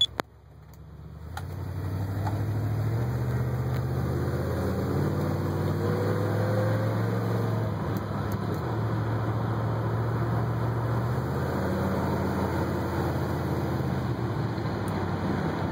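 1967 Buick 340 V8 engine and its transmission pulling the car along the road, heard from inside the cabin. The engine note builds over the first couple of seconds, then runs steadily, with its pitch stepping a few times.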